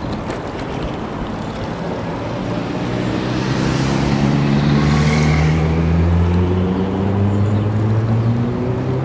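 A motor vehicle passing close by: its engine note swells up, is loudest about halfway through, then slowly drops in pitch as it goes, over steady wind and road rush from the moving bike.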